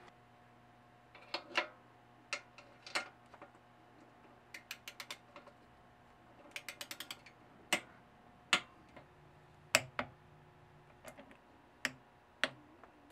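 Socket ratchet wrench clicking in two quick runs as bolts are tightened, with single sharp metal clicks and taps of tools on the parts between them.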